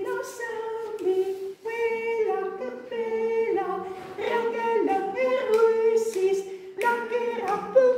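A woman singing a simple early-childhood song unaccompanied, a short tune of held notes moving within a few neighbouring pitches.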